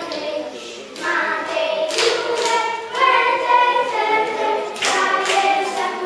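A group of children singing together.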